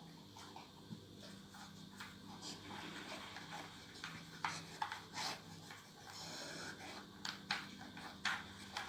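A dog working at a plastic puzzle feeder toy: scattered light clicks and knocks with rubbing, over a faint steady hum.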